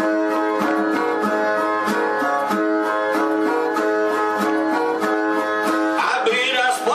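Brazilian viola playing an instrumental introduction, a repeated plucked figure with about three picked notes a second. Near the end a man's voice comes in over it, starting the sung repente.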